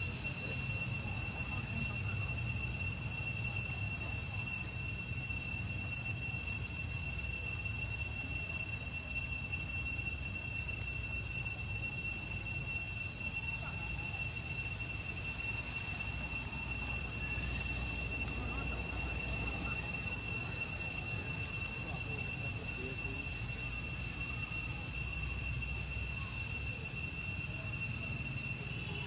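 Insects calling in one steady, unbroken high-pitched drone with a fainter overtone above it, over a low rumble.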